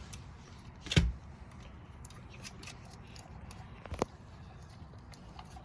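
Metal parts and tools of an electric chainsaw being handled during reassembly: scattered light clicks and ticks, with a sharp knock about a second in and a smaller click about four seconds in.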